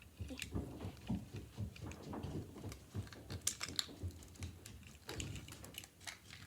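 Plastic LEGO bricks clicking and clattering as they are handled and rearranged, many small irregular sharp clicks.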